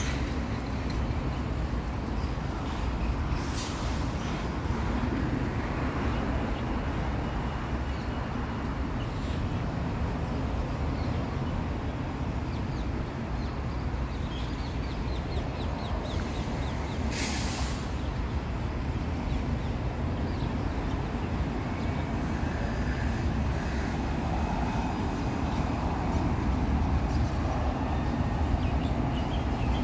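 Steady low rumbling background noise, with a short hiss about seventeen seconds in.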